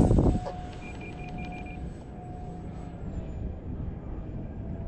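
Electric ducted-fan RC jet whining steadily at a distance, with a slight drift in pitch. Wind buffets the microphone at the start, and a quick run of five short electronic beeps sounds about a second in.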